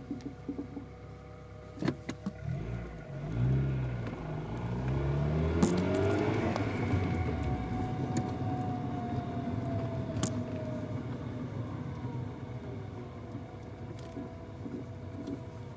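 Car heard from the driver's footwell: the engine climbs in speed a few seconds in, then a whining tone eases slowly down. A few sharp knocks stand out over it, the knocking and grating noise the owner is trying to trace.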